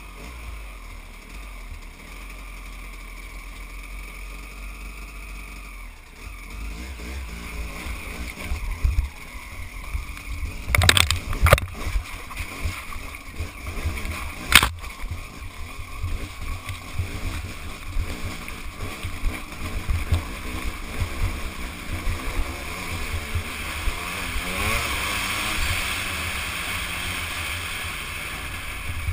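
Motorcycle engine running while ridden over a rocky trail, mixed with wind noise on the microphone and the rattle and knocks of the bike over rocks, including three sharp knocks midway. Near the end the engine revs up as the bike speeds along a smoother gravel track.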